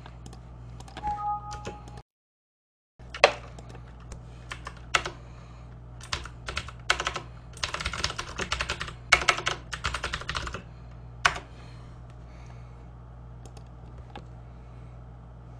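Computer keyboard being typed on in irregular bursts of key clicks, busiest in the middle, over a steady low hum. A short two-note beep sounds about a second in, and the audio cuts out completely for about a second soon after.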